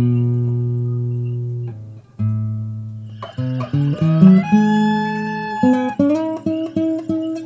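Background music played on plucked guitar: a few long notes ring out and fade, then a quick run of notes, a held bent note, and a steady run of picked notes.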